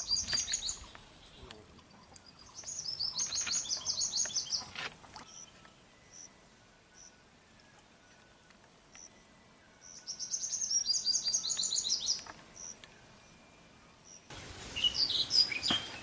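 A songbird singing the same fast, high trilled phrase three times, each about two seconds long, with quiet gaps between. Near the end the background gets louder and there is a short run of sharper high sounds.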